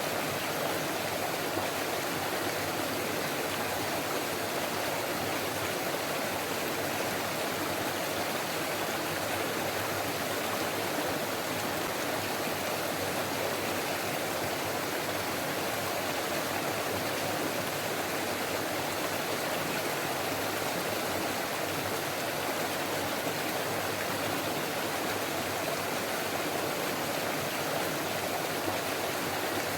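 Forest stream flowing and babbling steadily, an even rush of water with no breaks.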